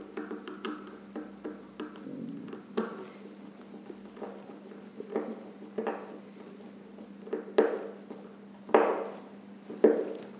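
Scattered small clicks, taps and rustles of hookup wires being handled and fastened into screw terminals, with a few sharper clicks in the second half over a steady low hum.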